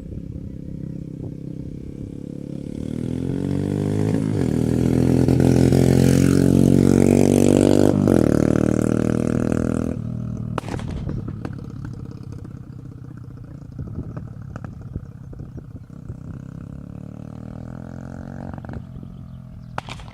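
Orcal Astor 125's single-cylinder engine revving up, holding high revs for a few seconds, then dropping back sharply to a lower run. Sharp pops from the exhaust crack out now and then as it falls back.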